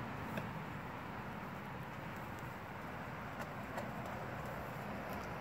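Blue Bay Shepherd gnawing a raw deer shoulder blade, giving a few faint crunches over a steady low background hum.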